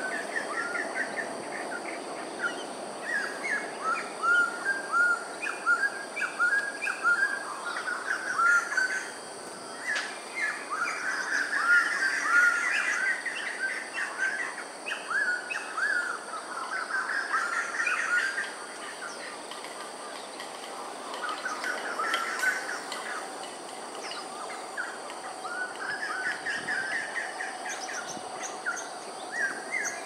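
Many small birds chirping together in a dense, overlapping chorus of short, quickly repeated calls, thinning briefly about two-thirds of the way through, over a steady high-pitched hiss.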